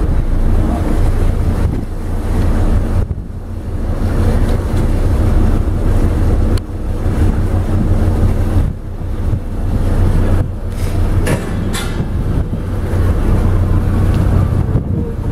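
Mersey ferry Snowdrop's engines running under way with a steady low rumble, with wind buffeting the microphone. About three-quarters of the way through there are two brief sharper sounds.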